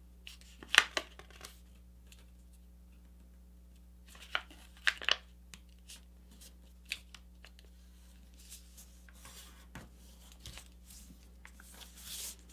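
A sheet of paper being pressed and creased into a squash fold by hand: scattered short rustles and crinkles, a few sharper ones about a second in and around five seconds, and a longer sliding rustle near the end.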